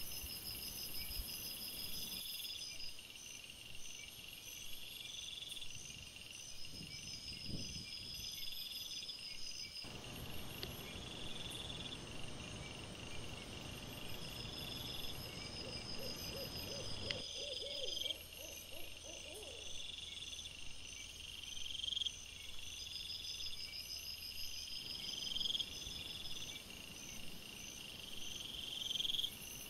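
Night insect chorus of crickets chirping in steady, evenly spaced pulses. A short wavering animal call is heard about two-thirds of the way through.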